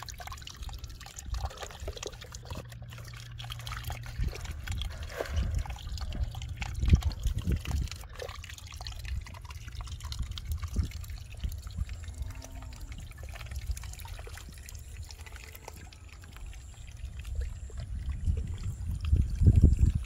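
Rainwater trickling and pouring through a gap between bricks into a muddy puddle, over a low rumble with scattered small clicks and knocks.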